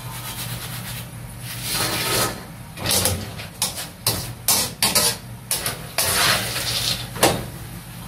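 Long-handled wire-mesh strainer scraping and knocking against a metal wok and a draining basket as fried peanuts are scooped out of the oil and tipped in. There is an irregular run of scrapes and clanks through the middle seconds, the loudest just after seven seconds, over a steady low hum.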